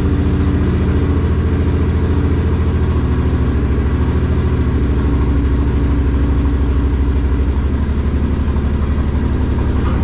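Suzuki Boulevard C50's V-twin engine idling steadily, with an even low firing pulse.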